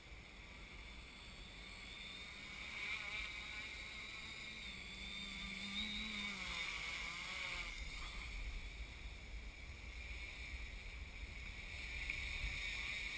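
Quadcopter's four electric motors and propellers buzzing in flight, the pitch wavering up and down around the middle as the motor speeds shift, and growing louder toward the end.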